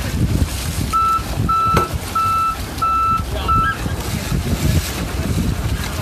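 Electronic beeping: five short beeps on one steady pitch in quick succession, starting about a second in, with a sharp click among them. Low wind rumble on the microphone and water noise run underneath.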